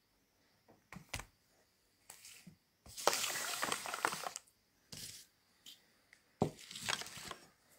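Handling noise from a phone held close: several short bursts of rustling and scraping, the loudest lasting over a second about three seconds in.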